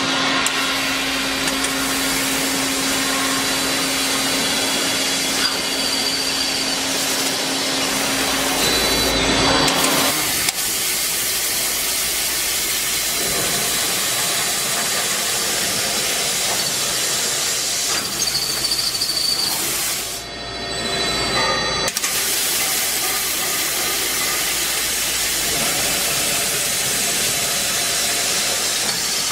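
KOTEC Newrun 7 beam drilling machine drilling holes in a steel beam: a steady hissing machining noise, with a steady hum through the first ten seconds that stops abruptly.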